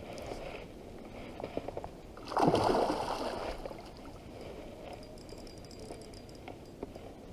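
A loud splash of water about two seconds in, dying away over about a second, against the steady rush of the river.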